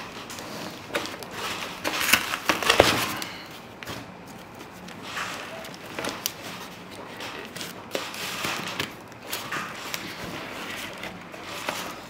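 Packing foam and plastic wrap rustling and rubbing as they are pulled out of a cardboard box, in irregular bursts with a few sharp knocks, the loudest about two to three seconds in.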